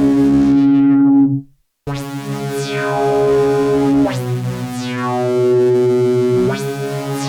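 Pittsburgh Modular Taiga Keyboard analog synthesizer playing sustained chords, with bright filter sweeps gliding down and up through the tone. It cuts out briefly about a second and a half in, then the chords change twice.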